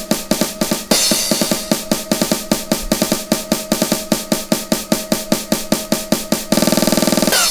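Electronic dance music played from DJ decks: a fast, steady drum beat with a cymbal crash about a second in. Near the end the beat speeds up into a rapid drum roll that cuts off.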